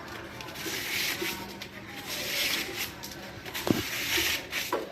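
Handling noise of parts and wiring being rubbed and shifted, with a sharp click near the end.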